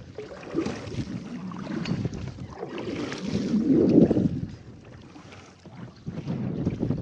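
Wind gusting across the microphone on a kayak, an uneven low rumbling rush that swells loudest about four seconds in, then drops away for a second or two before rising again.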